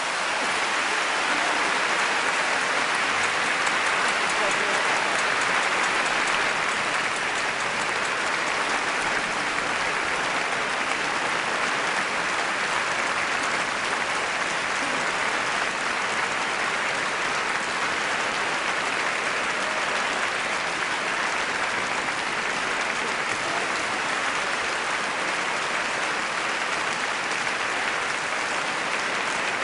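Audience applauding: a steady, dense wash of clapping with no music.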